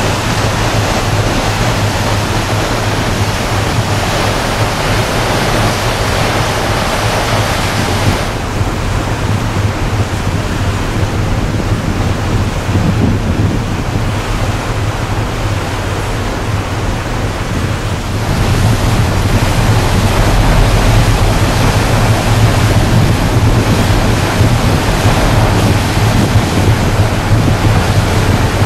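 Wind buffeting the microphone on a moving car ferry's open deck, over rushing water from the hull and wake and a low steady drone of the ship's engines. The noise turns duller about a third of the way in and louder again past the middle.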